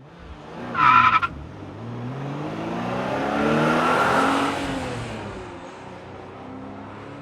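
A car engine drives past, swelling to a peak about four seconds in and then fading, with a short, loud, high-pitched blast about a second in.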